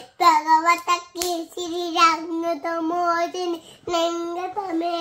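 A little girl singing in a high child's voice: phrases of steady held notes with short breaths between them.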